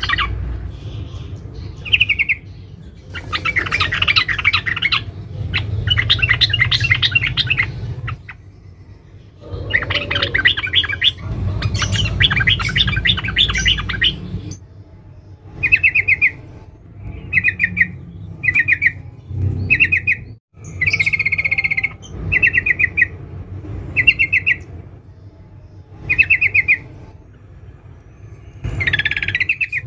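Female yellow-vented bulbul (trucukan) giving the fast, dense chattering call used to call a male: long runs of rapid chatter in the first half, then short bursts about a second or two apart. A low background rumble sits underneath.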